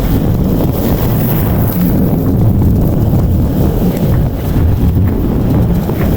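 A mower's engine running steadily, a low drone with wind buffeting the microphone over it.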